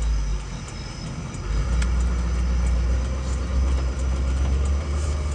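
Chevy Kodiak C4500 truck driving, engine and road rumble heard from inside the cab. The low rumble grows louder about a second and a half in.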